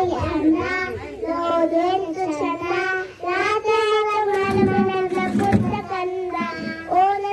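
A child singing alone, a single high voice holding long notes and sliding between them.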